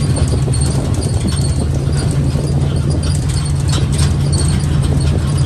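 Viar motor tricycle under way: a steady low engine drone, with the steel cargo cage rattling and clattering over the uneven lane.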